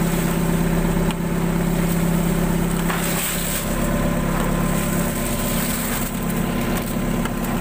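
A small engine running steadily, with scattered clicks and scraping of mussel shells as the mussels are cleaned.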